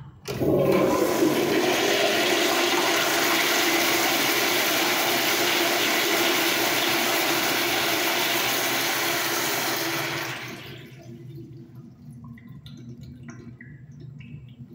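A Kohler Kingston toilet flushed by its chrome flushometer valve: a sharp start, then a loud rush of water for about ten seconds that drops to a quieter refill trickle. The flush clears a bowl packed with toilet paper in one go, a perfect pass.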